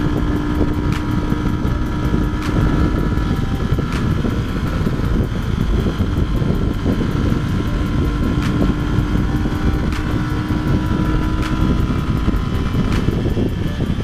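Yamaha R15 V2 single-cylinder motorcycle engine running at a steady cruising speed, heard from the bike itself, with heavy wind rush on the microphone and road noise.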